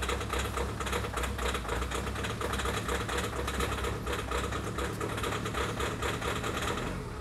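Mahindra Thar's engine idling rough with a fast, even clatter just after a cold start at about −21°C, still struggling in the cold; the owner is sure the coolant has frozen. The clatter eases near the end as the idle settles.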